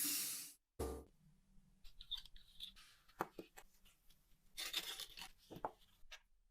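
A steady hiss cuts off about half a second in. Then comes a short thump, followed by faint scattered clicks and rubbing of small parts being handled.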